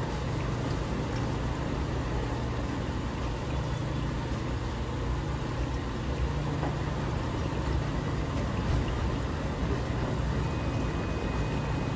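Dexter T900 commercial front-load washer running its wash cycle: the drum motor hums steadily while wet laundry tumbles and water sloshes in the drum.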